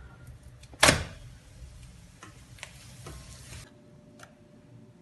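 Börek being turned in an enamelled cast-iron frying pan: one sharp, loud knock about a second in over a low steady rumble. The rumble stops abruptly about three and a half seconds in, leaving only a few faint clicks and taps.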